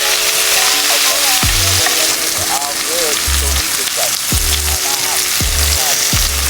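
Tallow sizzling and spitting as it is heated in a pot with salt and water, the first purification of freshly rendered fat.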